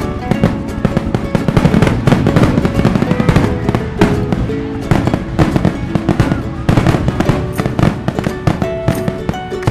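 Fireworks going off in rapid, irregular bangs and crackles, with music playing at the same time.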